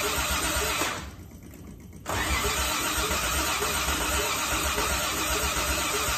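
Old Toyota Crown engine cranking on its starter without catching, in two spells with a short pause about a second in, while its distributor is turned by hand to find the ignition timing. The engine gets spark and fuel but the timing is off.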